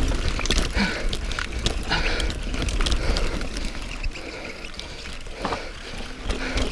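Mountain bike descending a wet, rocky trail: frequent sharp knocks and rattles from the bike over rocks, over a steady low rumble.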